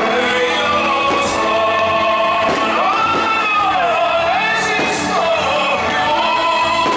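Music with a sung, choir-like vocal, loud and steady, with the singer's voice swelling and wavering in pitch. Now and then a faint crack of fireworks cuts through it.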